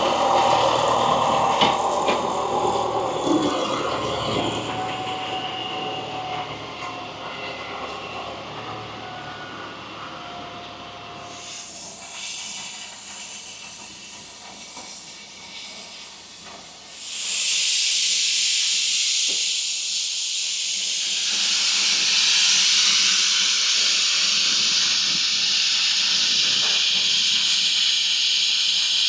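Steam locomotive hissing steam: quieter hissing with a few faint steady tones at first, then a loud steady hiss of escaping steam that starts suddenly about seventeen seconds in and carries on.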